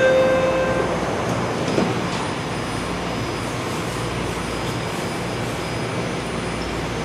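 BART train moving along the platform in the station, a steady rumble of wheels and motors. A steady tone at the start stops about a second in.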